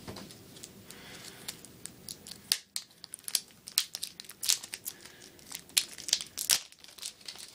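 Plastic packaging crinkling and crackling in quick, irregular sharp clicks as the iPad 2's white USB power adapter is taken out of its box and handled, growing busier from about halfway in.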